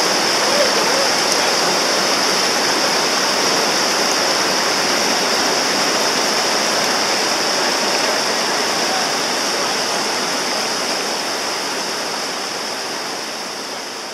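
River rapids rushing over rocks: a steady, unbroken hiss of white water that slowly fades toward the end.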